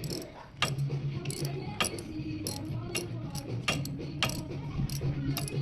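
Sharp metal clicks about every half second, from hand-tool work on a motorcycle engine during an oil-filter change, over a steady low hum.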